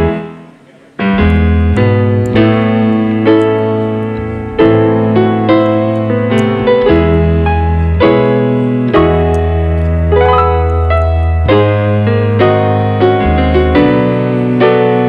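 Background piano music. It dips almost to silence in the first second, then the piano comes back in and plays on at a steady level.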